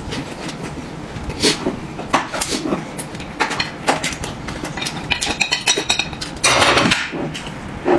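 Tableware clinking and knocking: utensils against dishes, in scattered sharp clicks, with a louder noisy clatter about six and a half seconds in.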